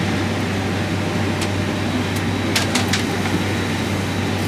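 Steady low hum and rush of an airliner cabin's air system in the galley, with a few light clicks and knocks of galley items being handled around the middle.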